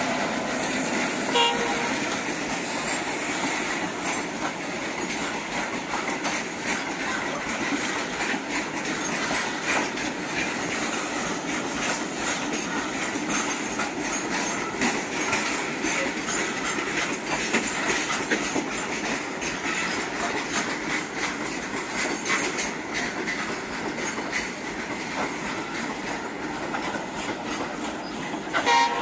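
Train running on the railway line: a steady rail rumble with a dense patter of clicks. Two short pitched chirps stand out, about a second in and near the end.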